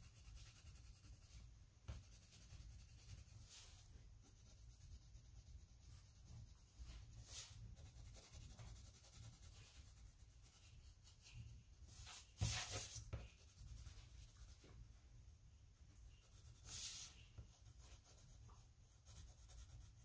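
Faint scratching of a pink colouring pen on a paper sheet as a picture is coloured in, in short strokes, the loudest about twelve seconds in.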